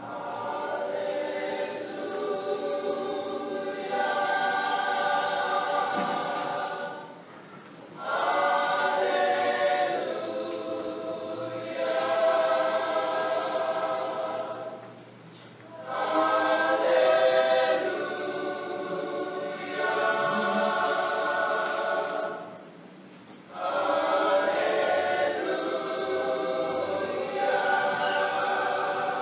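A choir begins singing, in four long phrases of about seven seconds each with short pauses between them.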